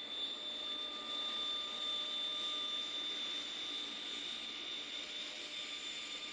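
Jet airliner engines running: a steady high whine over a rushing noise, cutting in abruptly.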